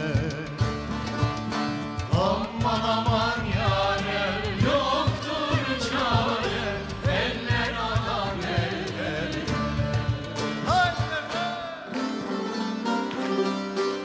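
Turkish folk song played live by a bağlama-led ensemble with percussion, with a chorus singing the refrain through most of it. Near the end the singing stops and the low drums drop away, leaving the strummed bağlama and strings.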